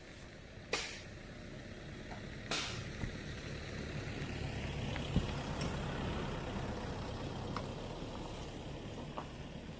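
A pickup truck on a dirt road, its engine and tyre noise building to a steady rumble from about three seconds in. Early on, two sharp knocks from the hand post-hole digging tools striking the ground.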